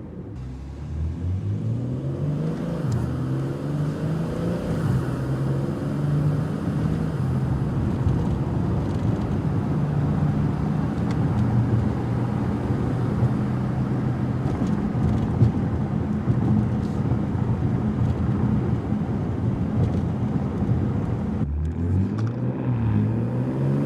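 BMW G80 M3's twin-turbo inline-six running through a Fi Exhaust valved catback exhaust under acceleration, its pitch climbing in steps over the first few seconds and then holding a steady drone. Near the end the revs drop suddenly and climb again.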